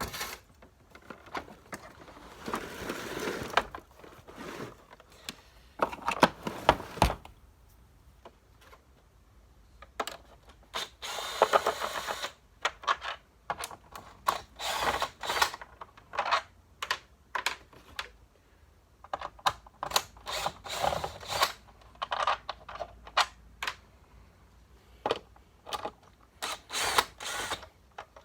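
Hands working on a vacuum cleaner's parts with tools: irregular clicks, knocks and rattles in bursts with short pauses, and a few longer scraping or buzzing stretches.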